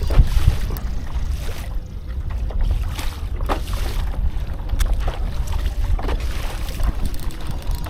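Wind buffeting the microphone out on open water from a kayak, a steady low rumble, with a few short knocks or splashes every second or so.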